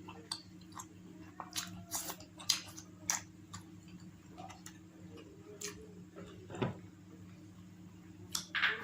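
Close-miked eating of roti and egg curry: chewing with irregular wet mouth clicks and smacks, and a louder smack near the end. A steady low hum runs underneath.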